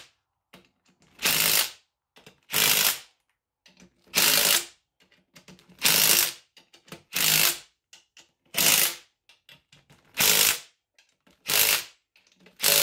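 DeWalt cordless impact driver running in eight short hammering bursts about a second and a half apart, tightening the crankcase cover bolts of a Honda GX390 engine in a cross pattern. Faint clicks come between the bursts.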